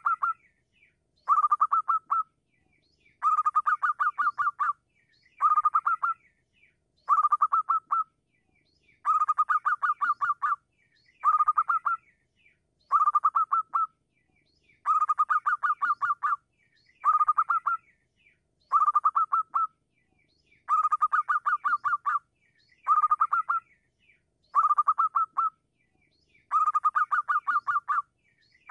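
Zebra dove singing: bouts of rapid staccato cooing notes, each about a second long, repeated over and over with short pauses between.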